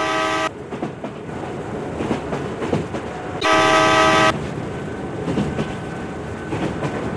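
Battery-operated toy steam train running along its plastic track with a continuous rattle, its electronic horn sounding a steady toot twice: one ending about half a second in, and another of about a second roughly three and a half seconds in.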